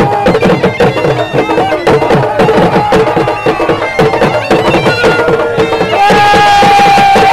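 Khattak dance music: a dhol beaten in a fast, steady rhythm under a shrill surnai reed pipe playing a wavering melody. The pipe holds one long note near the end.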